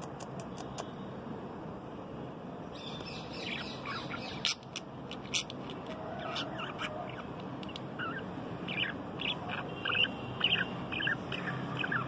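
Small caged parrots, a budgerigar and a cockatiel, chirping and chattering. Rapid short chirps start about three seconds in and grow busier and louder in the second half, over a steady background noise.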